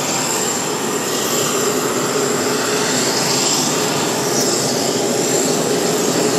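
Jet airliner's engines running as it rolls along the runway: steady loud jet noise with a thin high whine.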